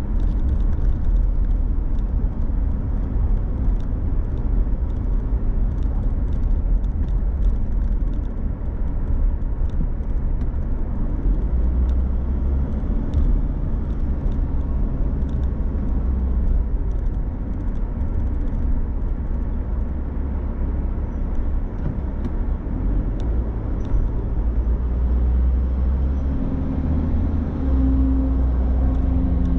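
Car driving through city traffic: steady low engine and tyre rumble. A pitched hum joins near the end.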